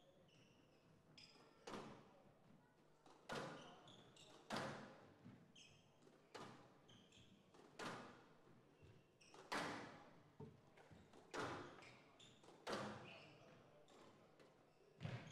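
Squash rally: the ball is struck hard by rackets and hits the walls with a sharp ringing crack about every one and a half seconds. Short high squeaks of court shoes on the floor sound between the shots.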